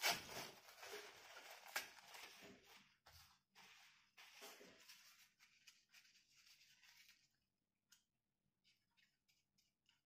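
A paper tissue being handled: rustling and tearing for about seven seconds, loudest right at the start, then a few faint light ticks.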